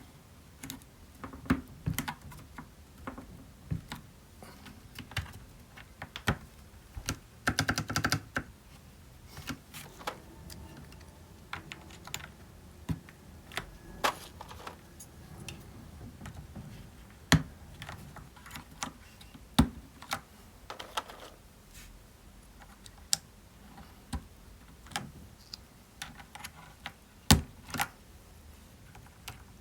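Thick PBT MT3-profile keycaps being pressed one by one onto the switch stems of a mechanical keyboard: sharp plastic clicks at irregular intervals. There is a short burst of clattering about eight seconds in.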